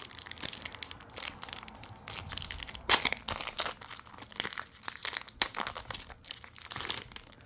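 Foil trading-card booster pack wrapper crinkling and being torn open by hand, a run of irregular crackles with the loudest, sharpest crackle about three seconds in.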